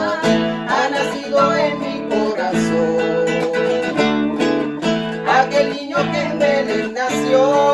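Acoustic guitar strummed in steady chords, with a man and a woman singing a slow Christmas praise song over it.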